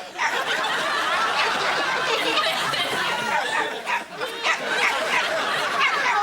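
Audience laughing steadily.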